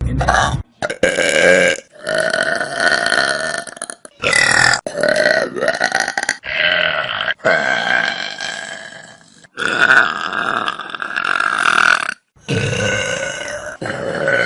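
A run of loud human burps, one after another, about nine in all, several long and drawn-out. Each stops abruptly as the next begins.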